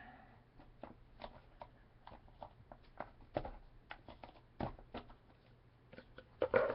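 Faint clicks and rustling of a trading-card box and its packaging being handled and opened, with a few louder clicks around the middle and near the end.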